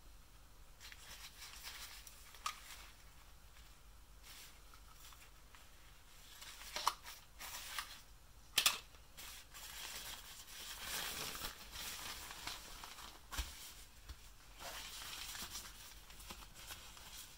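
Rustling and crinkling of a thin synthetic children's doctor coat being handled and spread out, with a few sharp clicks from the plastic toy stethoscope as it is picked up and moved; the loudest click comes about eight and a half seconds in.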